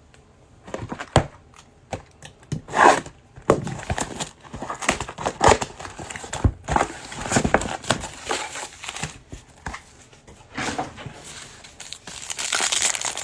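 Trading cards being flipped through by hand, along with crinkly pack wrappers being handled: irregular flicks and snaps, with denser crinkling near the end.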